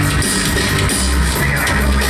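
Instrumental rock band playing live, with a drum kit keeping a steady beat under a heavy low bass line and electronic-sounding parts.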